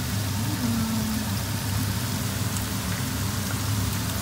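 Breaded chicken pieces frying in hot oil: a steady, dense crackling sizzle.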